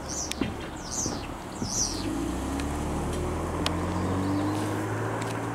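Songbirds chirping, a short downward-sliding call repeated about once a second, over outdoor ambience; from about two seconds in a steady low drone, like a distant engine, joins and holds.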